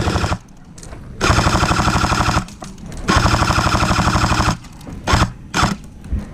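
Airsoft electric gun firing full auto: a short burst at the start, then two long rapid bursts of over a second each, and two single shots near the end.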